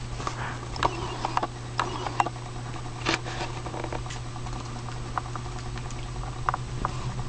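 Pet fancy rat scrabbling over plush stuffed animals and bedding: scattered light patters and scratches, under a steady low hum.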